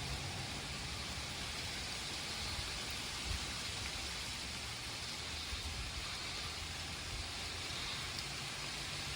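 Steady thunderstorm rain falling, an even hiss with no breaks.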